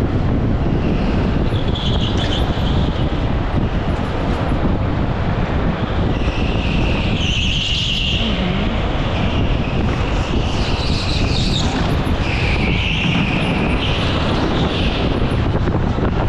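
Onboard sound of a go-kart at racing speed on an indoor track: a steady rumble from the kart and tyres on the floor, with wind on the camera microphone. Several bursts of higher squealing noise come and go through the corners, mostly in the second half.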